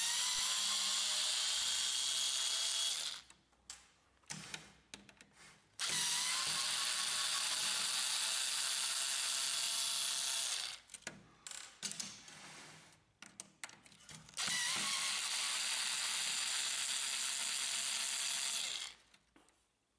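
Cordless electric screwdriver running in three bursts of a few seconds each, backing out three screws, with small clicks of handling in the gaps between them.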